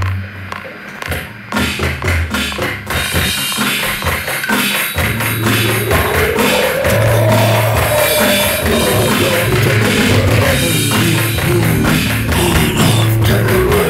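Loud rock music driven by a drum kit. Scattered drum hits lead in, the full band comes in about three seconds in, and it gets denser and louder a couple of seconds later, with a long sliding tone that rises and falls.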